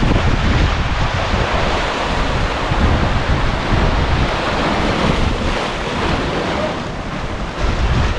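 Strong wind buffeting the microphone over waves washing against sea-rocks: a loud, steady rushing noise with a deep, uneven rumble underneath.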